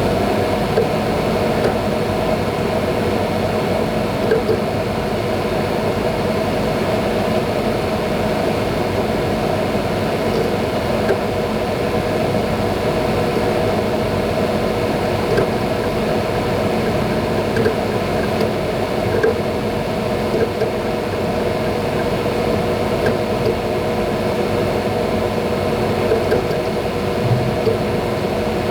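Synology DS220+ NAS running with its fan in maximum speed mode and Western Digital Ultrastar hard drives spinning: a steady whirring hum with faint scattered ticks.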